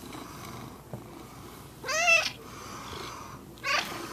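Domestic cat purring, with two meows: a longer, wavering one about two seconds in and a shorter one near the end.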